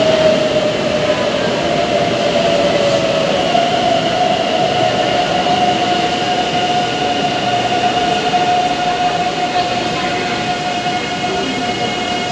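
Madrid Metro 9400-series electric train moving along the station platform: a steady rumble of wheels on rail with a held whine over it, the whine dipping slightly in pitch a couple of seconds in before holding steady, easing off a little near the end.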